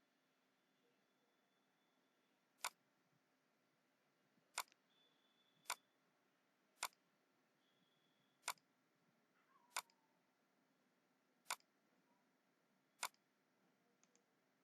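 Computer mouse clicking eight times, single sharp clicks about one to two seconds apart, against near silence. The clicks are typical of placing the points of a sketched line in CAD software.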